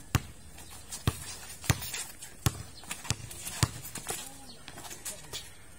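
Basketball dribbled on a concrete court: about eight sharp bounces at an uneven pace, roughly one every half second to a second.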